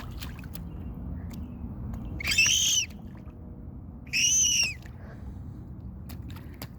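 A toddler's high-pitched squeals, two of them, each about half a second long, over steady low background noise.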